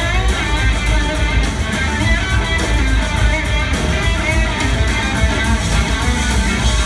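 Live rock band jamming: electric guitar lines bending over bass and drums, with cymbals ticking steadily.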